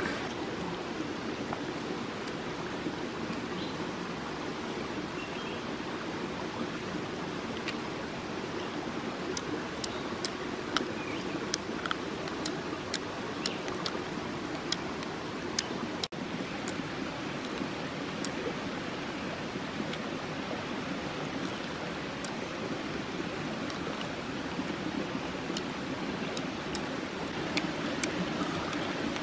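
Shallow rocky stream flowing with a steady rush of water, with faint small clicks scattered over it.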